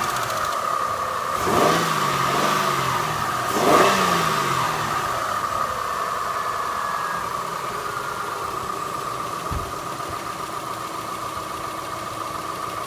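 Mitsubishi Galant engine idling with a hydraulic lifter tapping, blipped twice, about a second and a half and about four seconds in, then settling back to a steady idle. The lifter tap has not been cured by an oil additive.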